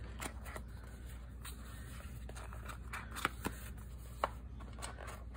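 Light paper and card handling: scattered soft rustles and small clicks, with a couple of sharper ticks about three and four seconds in.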